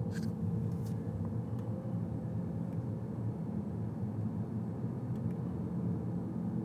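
Steady low rumble of a car driving, heard from inside the cabin, with a few faint clicks in the first second.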